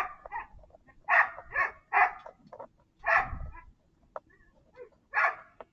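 Dog barking repeatedly: a string of short, separate barks, some in quick pairs, spread over several seconds.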